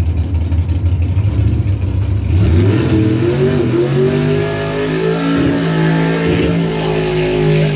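Drag racing car's engine idling with a low rumble, then revving up about two and a half seconds in and held at steady high revs.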